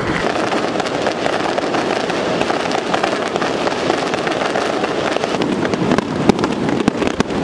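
Aerial fireworks bursting in a dense, continuous crackle of many small pops, with a few louder bangs near the end.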